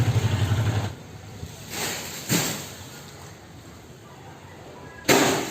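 A low engine idling, which stops about a second in; a brief noisy rush follows, and near the end a sudden loud knock.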